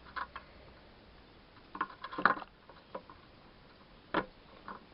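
Scattered light clicks and knocks of small hard objects being handled, with a quick cluster about two seconds in and the sharpest single click a little after four seconds.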